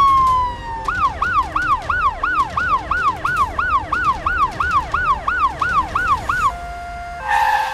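Ambulance siren sound effect: a long falling wail changes about a second in to a fast yelp that rises and falls about three times a second, cutting off about six and a half seconds in. A short steady tone and a brief burst of sound follow near the end.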